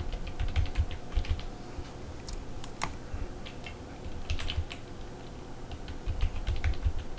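Typing on a computer keyboard: short irregular bursts of keystrokes with pauses between them.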